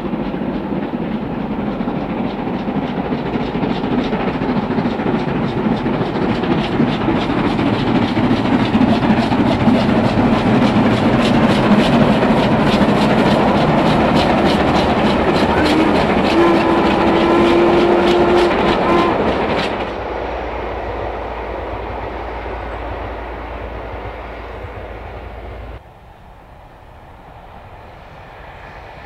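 Steam-hauled train passing close at speed behind two double-heading steam locomotives: a loud rumble builds up, with rapid clicks of wheels over rail joints and a held tone late in the pass. Near the end it drops away sharply to a quieter, more distant steam train working.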